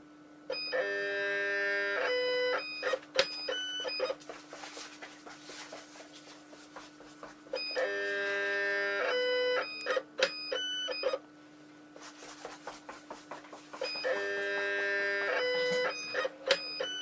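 XYZprinting Nobel 1.0 resin 3D printer working through its print cycle: its stepper motors whine in steady pitched tones that step up and down, followed by clicks. The pattern repeats about every seven seconds, three times, over a steady low hum.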